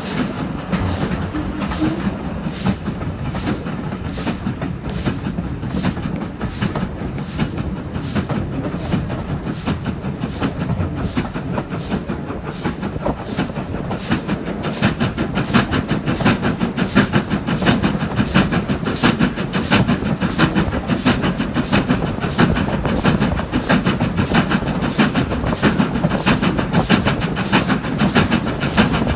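Stanier Black 5 two-cylinder 4-6-0 steam locomotive working hard at the head of a passenger train, its exhaust beating in an even rhythm of roughly one and a half to two beats a second, heard from a carriage window over the rumble of the coaches on the rails. It grows a little louder about halfway through.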